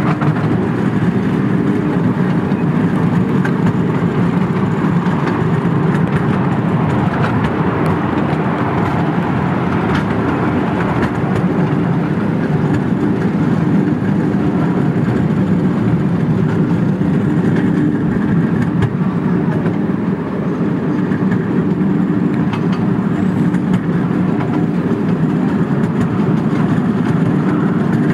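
Miniature ride-on railway train running steadily along its narrow-gauge track, heard from a riding car: continuous running noise of the small locomotive and the cars' wheels on the rails, with a faint steady low hum.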